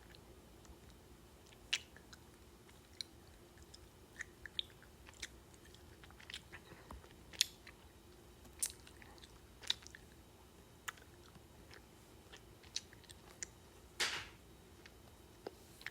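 Close-miked chewing and biting of candy: scattered sharp crisp clicks and small crunches every second or so, with one longer, louder crunch near the end.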